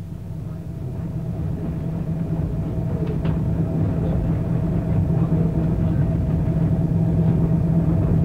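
Passenger train running, heard from inside the carriage: a steady low rumble with a constant hum, growing louder over the first few seconds and then holding.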